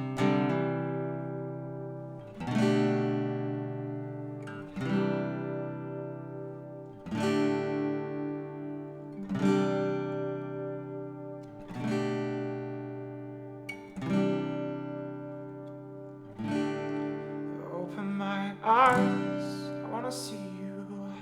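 Acoustic guitar playing slow strummed chords, one strum about every two and a half seconds, each left to ring out, in an instrumental break of a worship song. A short wordless vocal line comes in near the end.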